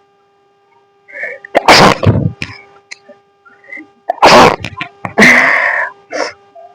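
A person sneezes hard twice, about two and a half seconds apart, each a sharp burst with a voiced tail. A longer breathy exhale follows the second sneeze.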